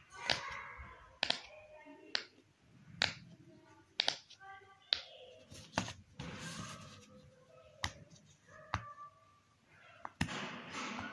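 Silicone pop-it fidget toy bubbles being pressed in by fingers, each giving a sharp pop, irregularly about once a second.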